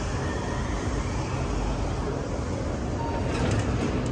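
Steady low rumble of background noise, traffic-like, with a brief faint tone about three seconds in and a few faint ticks near the end.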